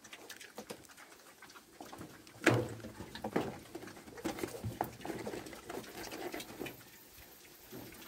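Two young pigs feeding at a tyre trough: irregular chewing, snuffling and clicks of snouts in the food and water, with the sharpest knock about two and a half seconds in.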